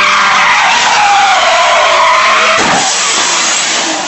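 Car tyres squealing in a long drifting skid, then a heavy crash about two and a half seconds in as the car leaves the road into the dirt, followed by fading noise.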